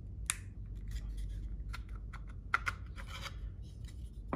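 3D-printed miniature pieces being handled: the portal insert lifted out of a printed gate model, giving a few light plastic clicks and a short scrape spread over the few seconds.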